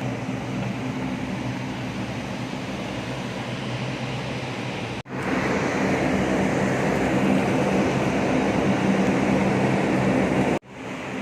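Steady mechanical drone with a low hum, cut off abruptly twice, about five seconds in and near the end; the middle stretch is louder.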